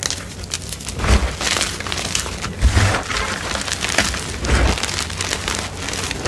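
Hands squeezing and crushing crumbled gym chalk blocks: dry, crackly crunching and crumbling. Several dull thumps as the hands press down into the pile.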